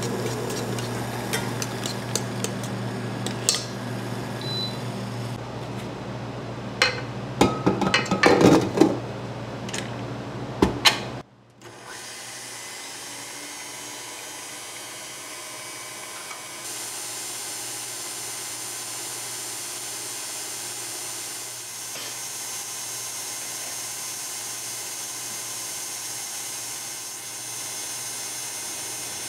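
Electric mixer motor running steadily, with clinks and clatters of bowl and utensils, louder just before it stops suddenly about eleven seconds in. After that comes a steady, even hiss with a faint high whine.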